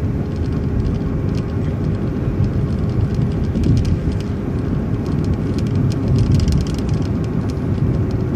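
City bus driving, heard from inside: a steady rumble of engine and road noise with a faint constant whine. Light rattles tick through it.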